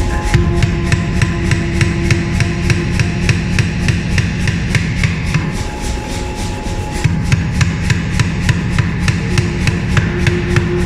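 Blacksmith's hammer striking hot steel on an anvil in a steady rhythm of about four blows a second, with a brief lull about two-thirds of the way through, over a steady low rumble.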